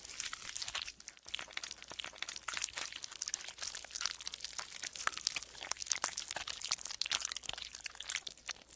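Golden slime being squeezed and pressed by hand, giving a dense run of small crackling, clicking squelches, with a brief pause about a second in.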